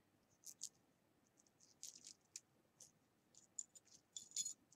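Faint, scattered clicks and light clinks of costume jewelry being handled, metal chains and beads tapping against each other, with a short cluster of clicks near the end.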